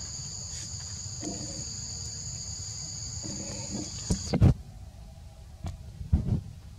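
Insect drone, a steady high two-tone whine, cuts off suddenly about four seconds in, over a low rumble. A few sharp knocks follow, the loudest just as the whine stops.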